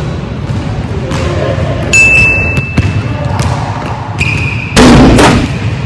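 Basketball bouncing and sneakers squeaking on a hardwood gym floor, with two short high squeaks about two and four seconds in. A sudden loud noisy burst about five seconds in is the loudest sound.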